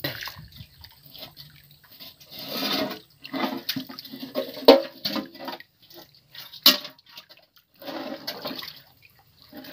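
Shallow water splashing and sloshing in irregular bursts as feet and hands move through it, with two sharp knocks about two seconds apart near the middle.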